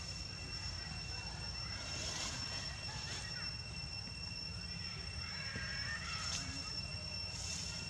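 Outdoor ambience: a steady low rumble with a steady high-pitched whine over it, and faint chirps or distant voices around two and five seconds in.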